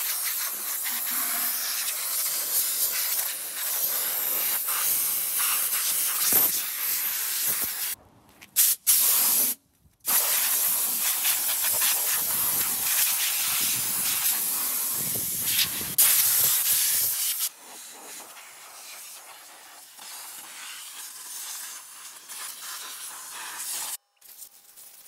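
Compressed-air blow gun hissing as it blasts dirt and debris off a removed, barn-stored VW Type 4 engine. It stops briefly about eight seconds in and again just before ten seconds, where the trigger is released. After about seventeen seconds the hiss goes on more quietly until it cuts off near the end.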